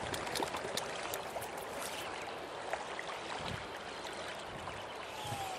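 A stream running steadily over a shallow, stony bed: an even rush of water.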